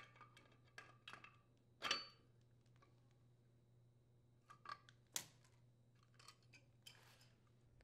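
Faint, scattered clicks and scrapes of metal pliers gripping and turning a furnace gas valve as it is threaded onto the gas manifold. The two loudest clicks come about two seconds in and about five seconds in.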